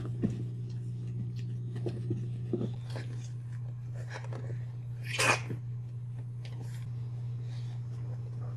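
Boxer puppies scuffling and snuffling around their mother, with soft scattered clicks and sniffs and one short, louder dog sound about five seconds in. A steady low hum runs underneath.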